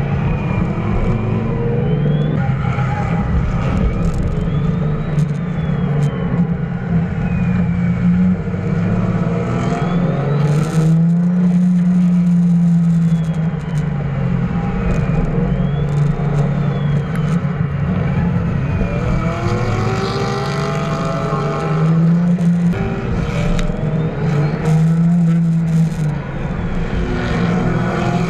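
Drift cars' engines held at high revs, the note dipping and rising again and again with the throttle through the slides, over the noise of tires sliding on asphalt.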